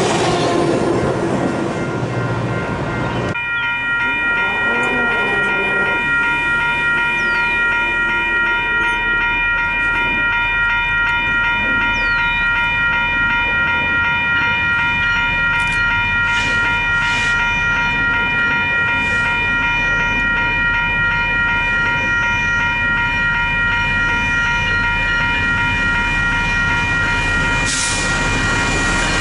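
Railcars rolling past on the rails, then a steady high-pitched ringing from a grade-crossing warning bell that goes on for over twenty seconds while a Union Pacific diesel-led intermodal freight train approaches with a low rumble. The bell cuts off near the end as the locomotive draws close.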